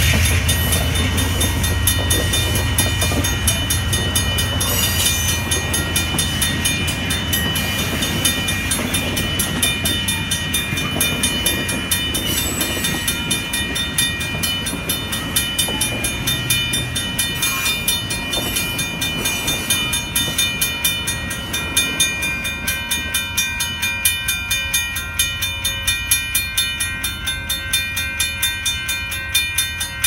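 Amtrak Superliner passenger cars rolling past a grade crossing, their low wheel rumble fading as the end of the train goes by. Over it the crossing's warning bell rings in a steady, rapid rhythm, which stands out more as the train clears.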